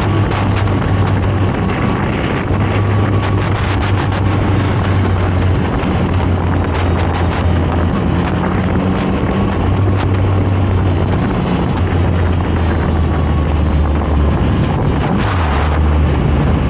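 Zontes 703RR sport bike's three-cylinder engine running on the move, its pitch stepping up and down every few seconds with throttle and gear changes. Wind noise buffets the microphone.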